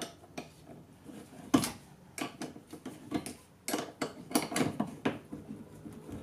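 Hand wrench clinking and knocking against a stiff steel leaf-spring shackle bolt on a golf cart's rear spring hanger as the bolt is worked out: irregular metallic clicks, with one sharper knock about a second and a half in.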